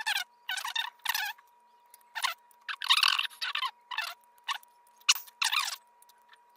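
Metal lock pick scraping and raking against the pins inside a Guard Security padlock's keyway, in short, irregular scratchy strokes. A faint steady whine runs underneath.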